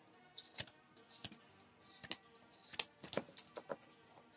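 Bakugan trading cards being flipped through by hand: an irregular run of short, sharp card snaps and slides, several a second.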